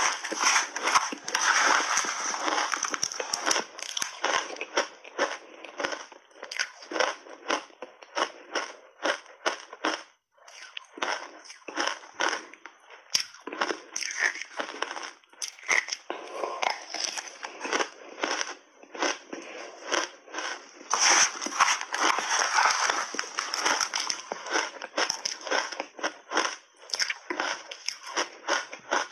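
Shaved ice being bitten and chewed in big mouthfuls close to the microphone: a dense run of sharp crackling crunches, with a brief pause about ten seconds in.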